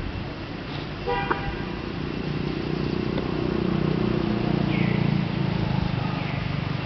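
A short horn-like toot about a second in, then a passing motor vehicle's engine hum that swells and fades, with a few short, high, falling squeaks near the end.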